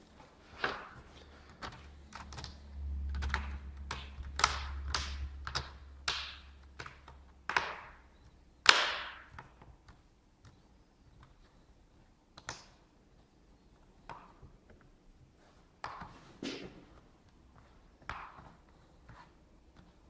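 Plastic laptop cover being pressed and snapped into place by hand: a run of irregular clicks, taps and knocks, thick for the first ten seconds with the loudest snap about nine seconds in, then a few scattered clicks.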